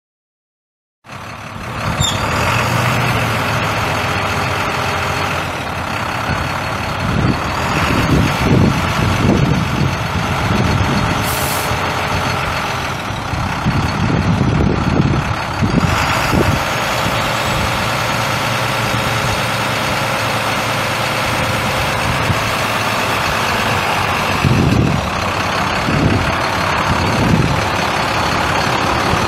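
International DT466 inline-six turbo diesel engine of a truck running steadily, starting abruptly about a second in. Its low rumble swells louder three times.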